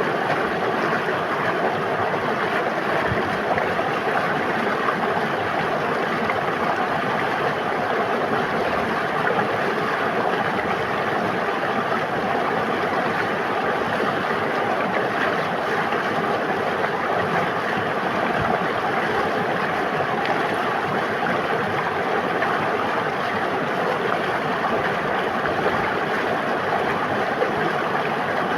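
River water flowing and rushing: a steady, unchanging stream of water noise.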